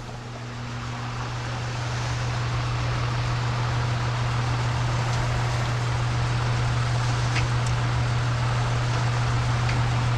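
Cabinet egg incubator's circulation fan running with a steady low hum and rushing air, louder over the first couple of seconds, without the grinding it had before. Two faint clicks come about seven seconds in as plastic egg trays are slid into the racks.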